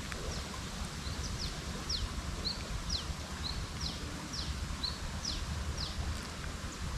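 A songbird singing a repeated phrase of quick downward-sliding high whistles alternating with short flat notes, about two notes a second, stopping about a second before the end. A steady low rumble runs underneath.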